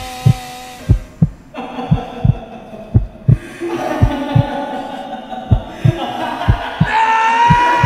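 Heartbeat sound effect: paired low thumps about once a second, over sustained eerie drone tones. A higher held tone comes in about seven seconds in.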